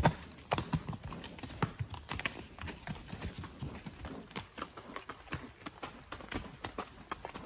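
Horse hoofbeats on a leaf-littered dirt trail: an uneven run of dull knocks, several a second.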